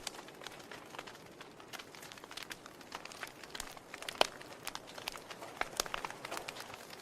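Wood fire crackling steadily in a fireplace: a soft hiss with frequent irregular snaps and pops, one louder pop about four seconds in.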